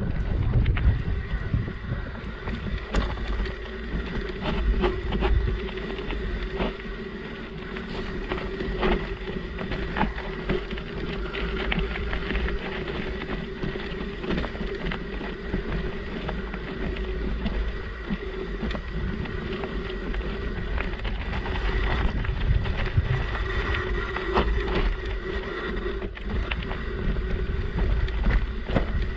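Mountain bike ridden slowly over a rough dirt singletrack, with wind buffeting the camera microphone. Frequent small knocks and rattles come from the bike jolting over bumps, over a faint steady whine.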